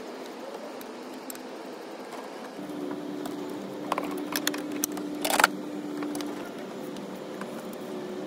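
A few short, sharp clicks and taps of hand tools on the screws of a Td5 diesel's fuel pressure regulator as they are tightened, clustered about four to five and a half seconds in. A steady low hum starts just under three seconds in.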